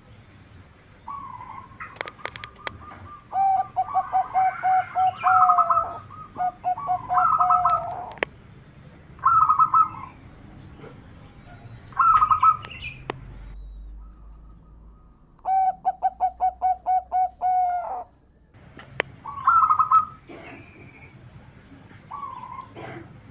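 Zebra doves (perkutut) cooing in repeated phrases. Some phrases are fast rolling runs of about eight notes a second, others short two- or three-note coos, with overlapping calls at two pitches.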